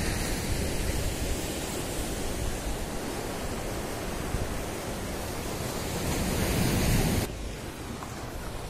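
Sea surf breaking and washing over a rocky shore, a steady rush mixed with wind on the microphone. It swells near the end and then drops off suddenly.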